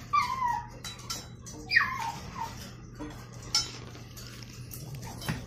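A puppy giving two short, high-pitched yips, one near the start and one about two seconds in, with scattered sharp clicks of claws on a tiled floor.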